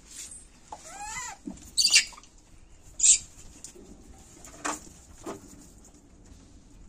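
Rhesus macaques squabbling over food. A young monkey gives a wavering squeal, then two short, loud, high-pitched shrieks follow about two and three seconds in, and a couple of briefer sharp calls come near the end.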